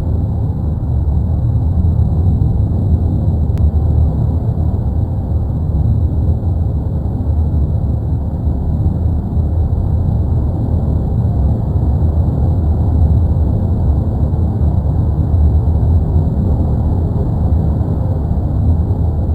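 Erupting Cumbre Vieja volcano on La Palma giving a continuous loud low rumble, steady throughout with little in the upper range.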